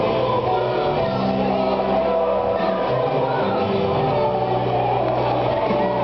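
Live band playing amplified music, with a singer's voice carrying the melody over steady bass notes and guitar.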